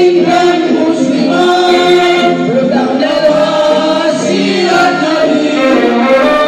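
Men's choir singing a kasidah, an Indonesian Islamic devotional song, with long held notes.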